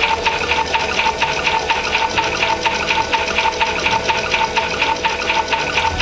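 Battery-powered toy washing machine running its wash cycle: a small motor turning the drum, with a steady rhythmic pulsing about four times a second.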